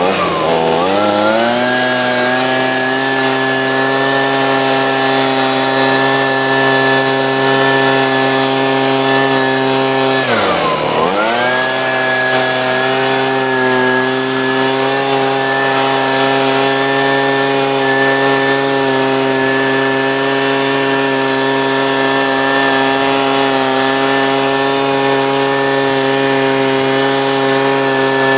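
Husqvarna 125B handheld two-stroke leaf blower running near full throttle. It revs up at the start, eases off briefly about ten seconds in and climbs straight back, then holds a steady high pitch.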